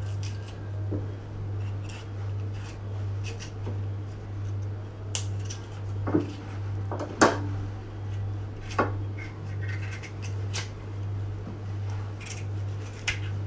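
Seasonings being cut up by hand: scattered sharp clicks and knocks of the blade, a second or more apart, over a steady low hum.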